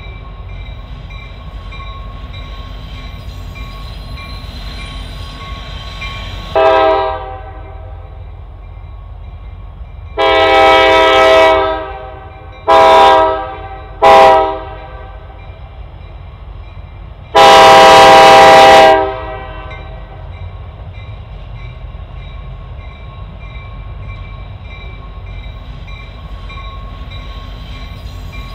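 Air horn of a CSX SD70MAC diesel locomotive sounding for a grade crossing: a short blast, then a long, two short and a final long blast, over the steady rumble of the approaching freight train. A bell rings steadily underneath.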